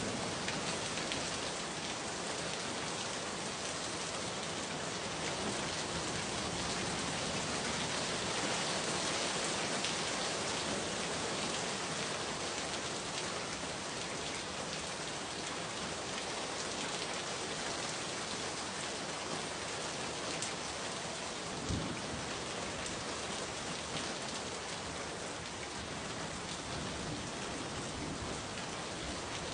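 Steady rain falling, an even hiss with one brief low knock about two-thirds of the way through.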